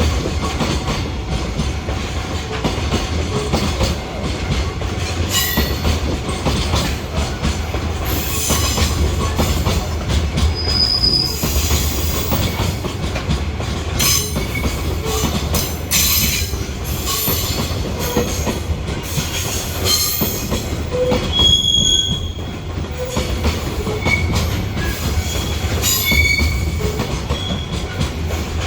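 Container freight train rolling past: a steady low rumble of wheels on rail with rapid clicking, broken a few times by short high-pitched wheel squeals.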